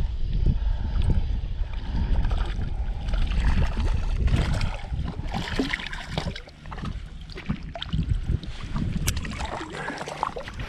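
Wind buffeting the microphone with a low rumble, then water splashing and sloshing with small knocks from about three seconds in.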